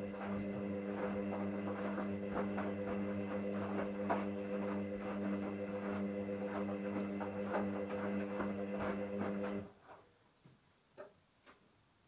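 Hoover Dynamic front-loading washing machine on a 60 °C wash: the drum motor hums steadily while the wet laundry tumbles with a patter of small knocks. Near the end the motor cuts out suddenly as the drum stops, leaving a few faint ticks.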